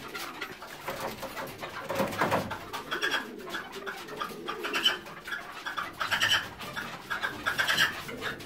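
Red-legged partridges calling, with short calls repeated every second or two, during a territorial face-off between a female and a newly introduced male.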